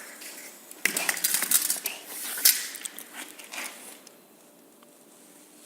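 Stiff cardboard rustling and clacking as a cardboard corner cutting machine handles and cuts packaging corners: a few seconds of irregular clicks with one sharp knock in the middle, then it stops.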